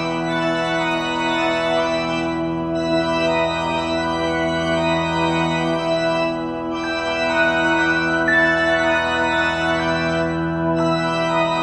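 Background music of slow, held organ-like chords that change a few times.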